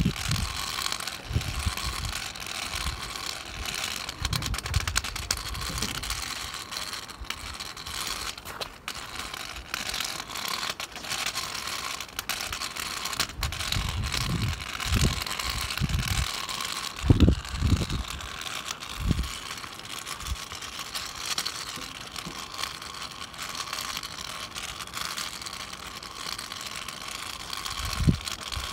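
Steady hiss of falling rain, broken by a few short, low rumbling thumps.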